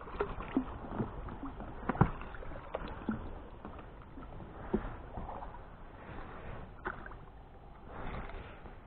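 An oar paddling through water as a small boat is rowed, with water splashing and scattered short knocks.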